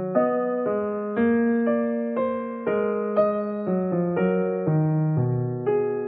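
Background piano music: a slow melody with a new note or chord struck about every half second.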